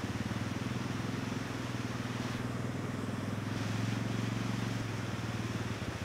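ATV engine idling steadily.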